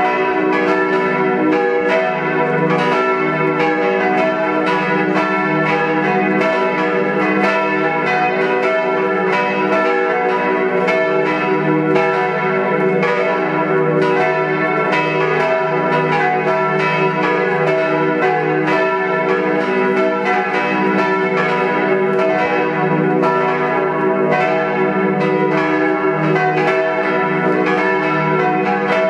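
Four bronze church bells ringing together in a swinging peal, tuned e', f-sharp', g-sharp' and b'. Three were cast by Karl Czudnochowsky in 1950 and one by Kortler in 1907. Their strokes overlap without a break at an even level.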